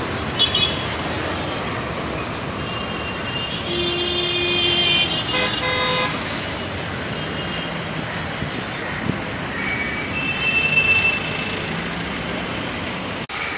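Street traffic running steadily, with vehicle horns honking several times: a short toot about half a second in, longer honks around four to six seconds in, and another near eleven seconds.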